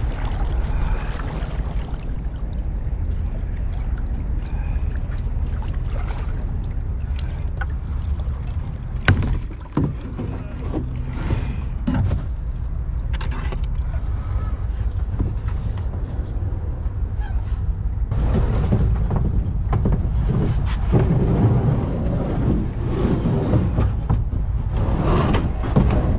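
A plastic sit-on-top kayak is climbed out of at a floating dock and handled, with water sloshing and a sharp knock on the hull or dock about nine seconds in. Near the end come busier scraping and bumping as the kayak is hauled up, all over a steady low rumble.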